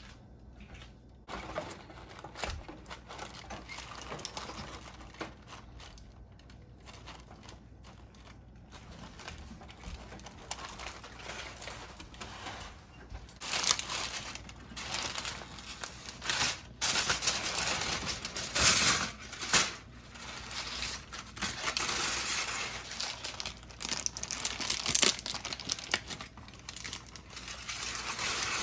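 Baking paper crinkling and rustling as it is handled under a baked stuffed cabbage being turned out and the paper pulled away, louder in the second half with a few sharper crackles.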